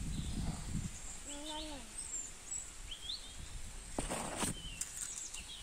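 Rural outdoor ambience: scattered short bird chirps over a steady high insect hum, with a brief pitched call early on and a short noisy rustle about four seconds in.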